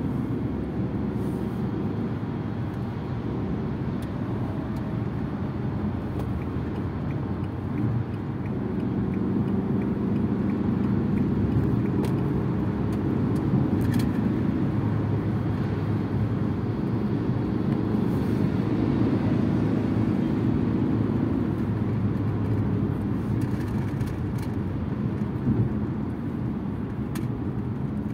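Steady road noise and engine hum heard inside a Fiat Egea's cabin while driving on a highway, mostly low rumble from tyres and engine. It grows louder for a stretch in the middle, then eases back.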